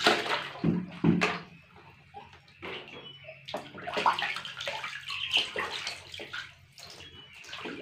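Water splashing and sloshing in a plastic tub as a baby monkey and a duckling swim and paddle in it: two sharp splashes in the first second or so, then lighter, irregular sloshing.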